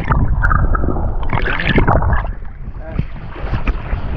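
Wind buffeting the microphone and choppy waves splashing around a small outrigger boat in rough sea, with a louder rush of noise about a second and a half in.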